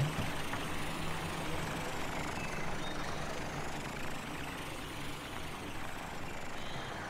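Cartoon truck engine sound effect: a steady engine hum with road noise as a fire truck drives off.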